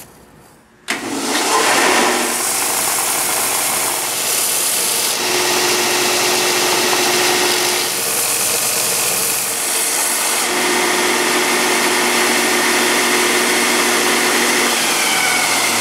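Bench belt sander running, with a mahogany block pressed against the moving belt to sand a curve down to a traced line. It is a loud, steady grinding hiss over a hum, starting about a second in and shifting a few times as the wood is pressed and moved.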